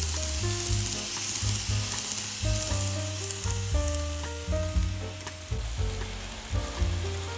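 Background music: a melody of short held notes over a pulsing bass, with a steady high hiss underneath.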